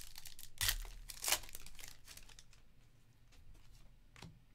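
Foil trading-card pack being torn open and crinkled in the hands, loudest in the first second and a half, then quieter rustling as the cards are handled.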